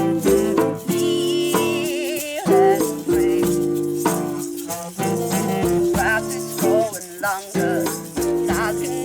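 Music: held notes repeating under a wavering melody line, with a rattle or shaker keeping time.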